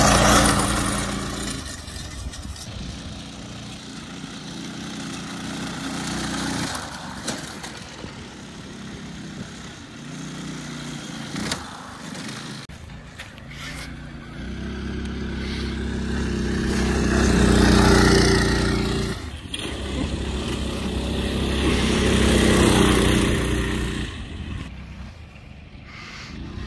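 Minibike engines running and revving as the bikes ride past on grass, the sound swelling and fading as each pass comes close and draws away, loudest at the very start and twice more in the second half.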